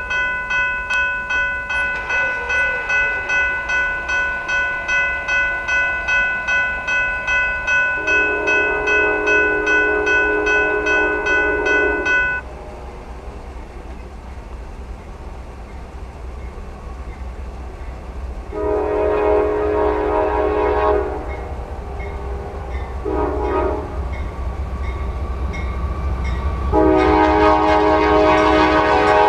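A Norfolk Southern freight locomotive's horn sounds long blasts at about 8, 18 and 27 seconds in, with a short blast near 23 seconds, as the train approaches. A bell rings in quick, even strokes until about 12 seconds in, then stops, while the train's low rumble grows.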